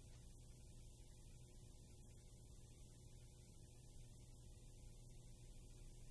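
Near silence: a faint, steady low hum with hiss.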